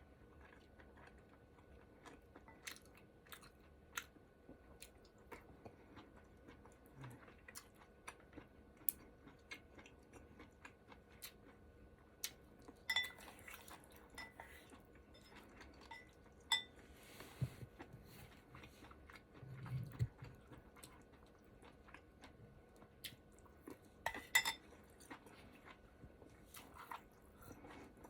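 Quiet, close-up eating of ramen hotpot: chewing with scattered soft wet clicks, and utensils clinking against the dish with a short ring a few times, most clearly about halfway through and near the end.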